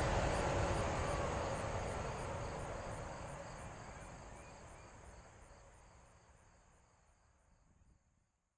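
Jet noise from an airliner passing low on approach, with a high insect chirp pulsing nearly three times a second. Both fade out evenly to silence over about eight seconds.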